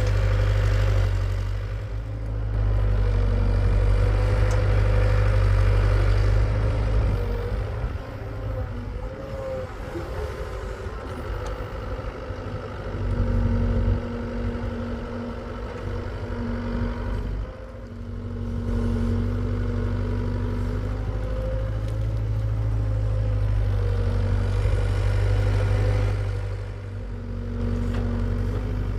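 Hitachi EX75UR excavator's diesel engine running steadily while digging, its level rising and falling every few seconds as the work load changes.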